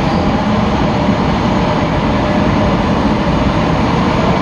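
CAF metro train running steadily between stations, heard from inside the car: an even rail rumble with a low hum.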